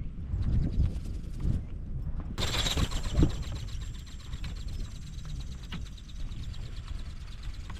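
Wind rumbling on the microphone. About two and a half seconds in, a small flapping-wing ornithopter's brushless motor and gearbox start up with a high whine and rapid ticking, then fade slowly as it moves away.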